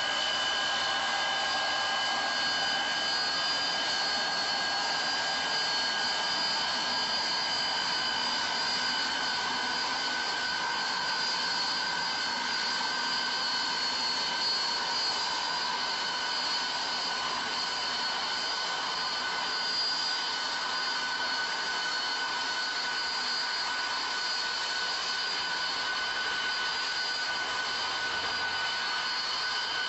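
Rail snow blower running steadily as it clears snow from the tracks: a rushing blast of air and snow with a steady high whine held throughout.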